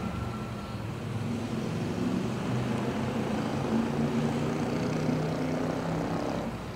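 Low engine drone with a wavering pitch, fading down near the end.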